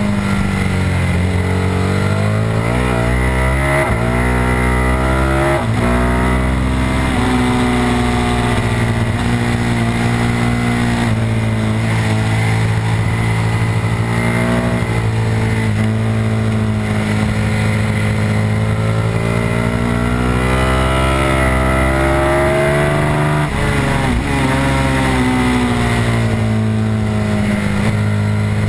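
KTM RC8R sportbike's V-twin engine at track speed, its pitch climbing under hard acceleration and dropping again, over and over, with brief breaks at the gear changes.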